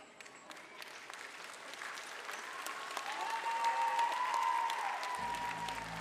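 Audience applauding at the end of a stage dance, the clapping growing louder over the first few seconds. A long, steady high tone sounds over it in the middle.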